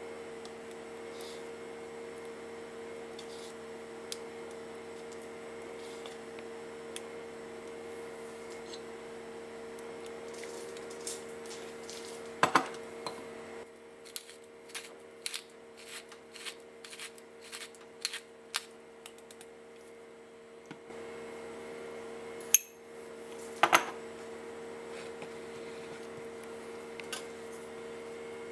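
Utensil knocking and clinking against a ceramic bowl as yogurt and mustard are spooned in. Three sharp knocks stand out among lighter clicks, over a steady low hum that drops out for several seconds in the middle.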